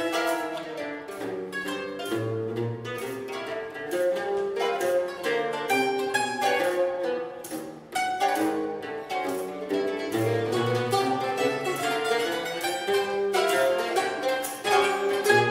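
Mandolin quartet of two mandolins, a mandola and a liuto cantabile playing a classical piece together, with low held notes in the bass. The music briefly drops away about eight seconds in, then all come back in together.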